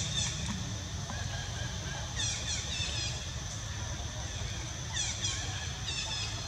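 A bird calling in two runs of quick, high, falling chirps, one about two seconds in and one near the end, over a steady low rumble.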